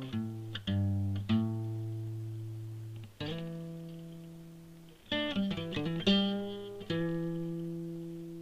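Music: a guitar playing plucked notes and chords, several left to ring out and fade over a couple of seconds, with a quick run of notes about five seconds in and a last chord that rings on to the end.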